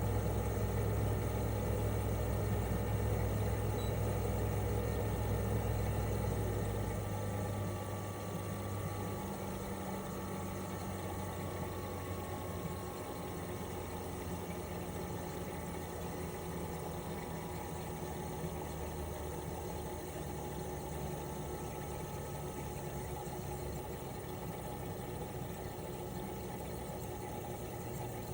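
Toshiba RAS-285BAD inverter air-conditioner outdoor unit running in cooling, its twin-rotary compressor humming steadily under the whir of the propeller fan. About seven seconds in, the deep hum drops away and the compressor's tones step and glide lower as the inverter slows the compressor.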